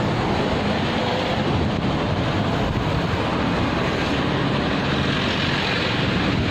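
Steady roadside traffic noise, a continuous rumble and hiss with no distinct strikes.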